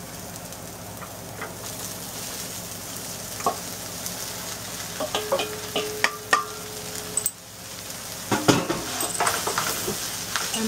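Chopped yellow squash dropped into a hot nonstick wok of frying onions, with a steady sizzle, then a wooden spoon stirring and scraping the pieces, with a quick run of knocks against the pan over the last few seconds.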